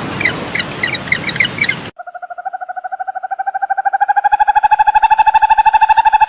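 Birds chirping over a steady hiss that cuts off abruptly about two seconds in. A single long animal call follows: a rapidly pulsing, pitched tone that slowly rises and grows louder.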